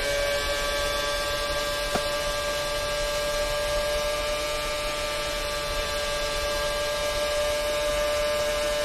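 Onboard sound of a 2010 Red Bull RB6 Formula One car's Renault 2.4-litre V8 engine at high revs, holding a steady, nearly unchanging pitch.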